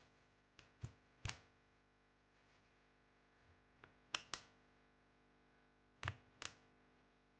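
Mini Cat64 mechanical keyboard with linear switches: a few single keys pressed and released one at a time, sharp clacks, several in close pairs, with long quiet gaps between them.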